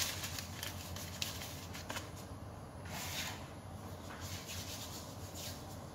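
Floury hands rubbing together to brush off flour, soft swishing strokes with a few light taps, over a low steady hum.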